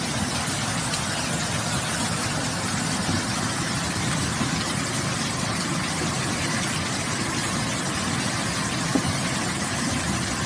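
Cars driving through a flooded street, engines running as they push through the water, over a steady hiss of heavy rain and floodwater.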